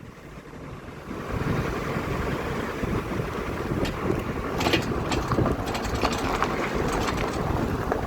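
Opel Astra K driven over bumps, with a metallic rattle of sharp clicks and knocks from the left brake caliper, clustered about halfway through, over steady road and wind noise. The rattle comes from the caliper sitting loose because its anti-rattle spring clip is missing.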